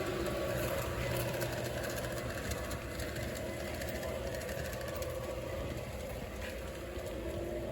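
Garden-scale model train running on its track: a steady motor hum with rapid light clicking.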